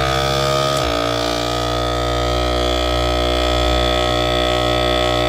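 Countertop vacuum sealer's pump motor running as it draws the air out of a freezer bag, with a steady hum whose pitch rises slowly until a click about a second in, after which it runs at an even pitch.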